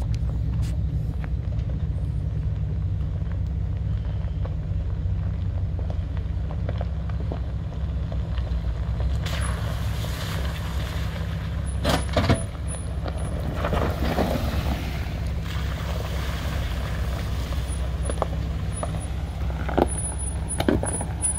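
Jeep Wranglers driving slowly past on a dirt road: a steady low engine rumble, with tyres crackling over dirt and stones as they come close, most busily in the second half.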